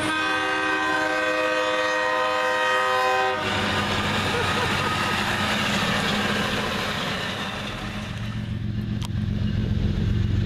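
A horn sounding a steady chord, cut off abruptly about three seconds in, then the rumble and clatter of an on-track rail maintenance machine rolling over the crossing. Near the end a low steady hum takes over.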